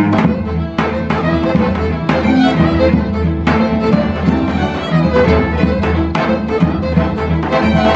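Live acoustic folk ensemble music: two violins bow a lively melody over a cello, with a low bass note held underneath and a regular rhythmic pulse.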